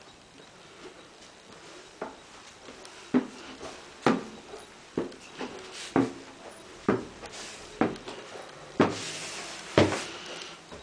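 Footsteps climbing wooden stairs: about nine steady footfalls, roughly one a second, starting about two seconds in.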